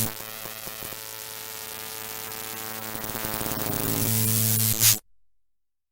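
Video intro sound effect: a buzzing electronic hum laced with static that swells gradually and then cuts off abruptly about five seconds in.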